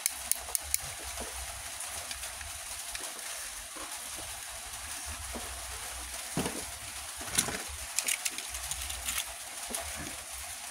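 Light clicks and knocks of small die-cast toy fire trucks being handled and set against each other in a plastic bowl: a few just after the start and a busier cluster from about two-thirds of the way in, over a steady hiss.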